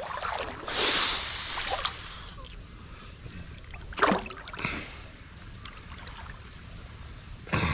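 Water splashing for a second or two near the start, then a short sharp splash about four seconds in.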